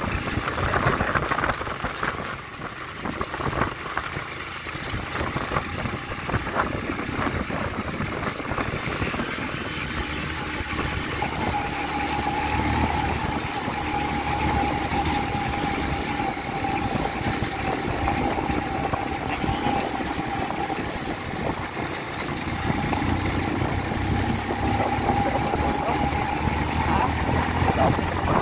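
Small motorcycle engine running while riding over a rocky gravel road, with scattered knocks and rattles as the bike jolts over stones. About a third of the way in the engine settles into a steady note.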